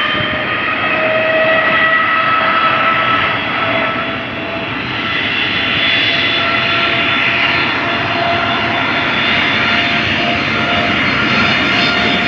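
Boeing 787-8's GEnx-1B turbofans running at takeoff thrust during the takeoff roll: a loud, steady jet noise with several whining tones held at an almost level pitch.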